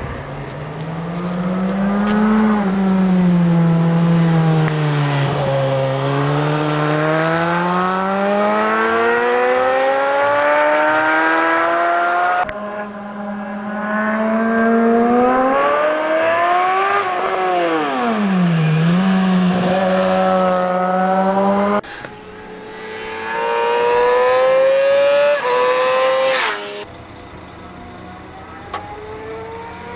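Sport motorcycle engine under way, its pitch climbing and falling smoothly as the rider opens the throttle and backs off. The sound breaks off abruptly about 12 s, 22 s and 27 s in, where separate clips are joined.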